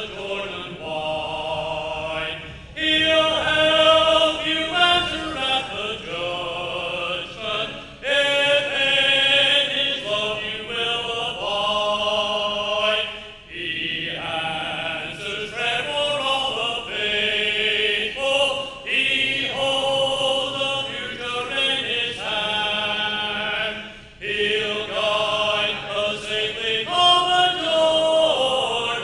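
A congregation singing a hymn a cappella, led by a man's voice at the microphone, in sung phrases with held notes and brief pauses between lines.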